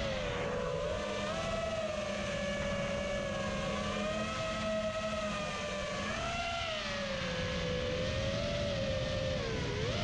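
FPV quadcopter's motors and propellers whining, the pitch wavering up and down with the throttle, rising about two-thirds of the way through and dipping sharply near the end.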